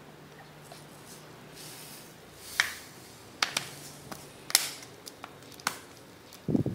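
Plastic water bottle crackling and clicking in the hands as salt is poured from it into a balloon: a few sharp crinkles spread over the second half, then a couple of low bumps near the end.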